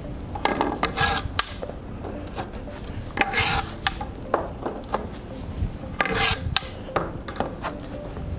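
Pipe columns being pushed by hand, one after another, into the compression-fitted couplings of a plastic platen. Each one grates and scrapes as it slides into its fitting, about a second in, about three seconds in and about six seconds in, with sharp clacks and knocks in between.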